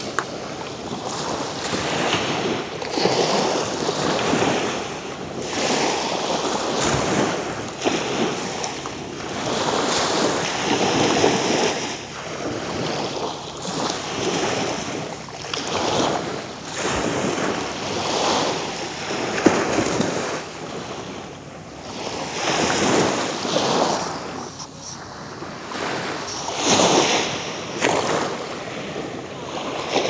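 Small waves breaking and washing up a sandy shore, the surf rising and falling every couple of seconds.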